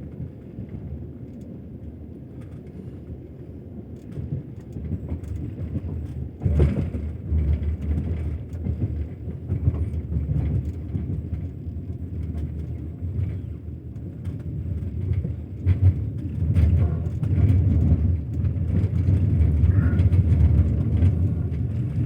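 Passenger train running on the rails: a steady low rumble with the knocking clatter of its wheels over the track, growing louder about four seconds in and again near sixteen seconds.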